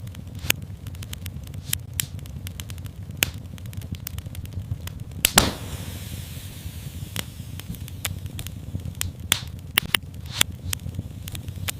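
Wood fire in a fireplace crackling, with frequent sharp snaps over a low steady rumble of the flames. A louder pop comes about five seconds in, followed by a faint hiss.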